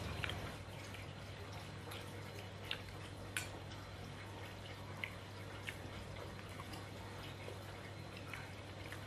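Quiet eating at a meal of rice and grilled fish: scattered small clicks and smacks of chewing and of a spoon and fingers on plates, over a faint steady low hum.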